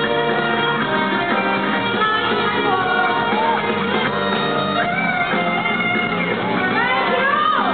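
Live band music with a singer, guitar among the instruments, recorded from within the concert crowd.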